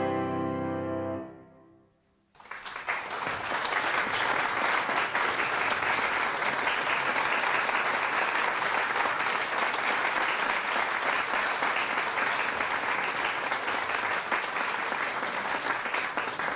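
The final chord of a piano piece for four hands rings and dies away. About two seconds in, an audience breaks into steady applause that carries on.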